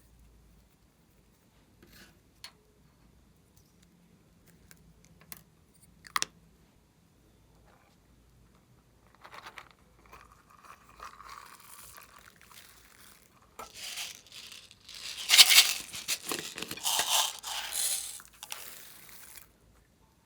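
Slime being worked by hand: a few scattered light clicks, then from about halfway a stretch of dense crackling and crinkling that is loudest near the end and stops shortly before it.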